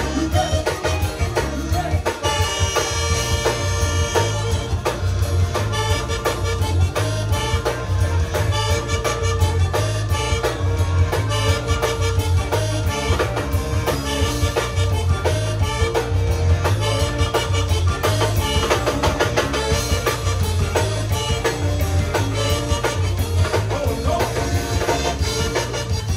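Zydeco band playing an up-tempo number: accordion leads over drum kit and bass with a steady beat.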